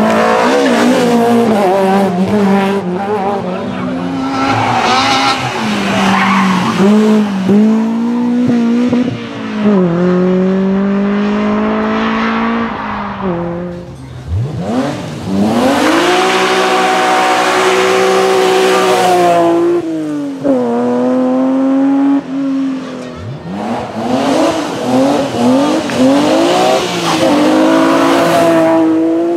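BMW rally cars' engines at full throttle on a stage, revs climbing and dropping sharply through the gear changes, in what sound like several separate passes.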